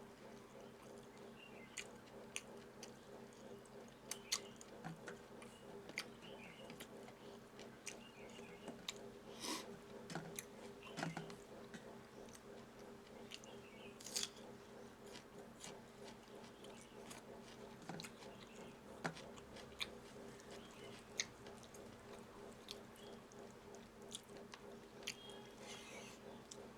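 Close-miked chewing and mouth sounds of a person eating a meal, with scattered soft wet clicks and smacks, over a faint steady hum.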